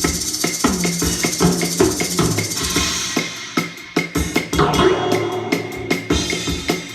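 Music with a steady drum beat and low bass notes played through Elac Debut B6.2 bookshelf speakers driven by a Cambridge Audio CXA60 amplifier, picked up by a phone's microphone in the room.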